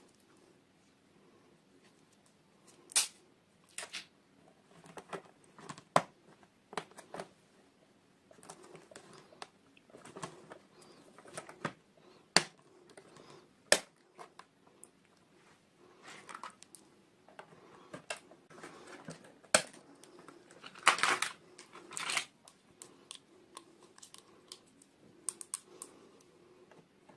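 Hands unboxing miniature toys: irregular small clicks, taps and plastic rustles as packaging and tiny pieces are handled, with a longer rustle about two-thirds of the way through.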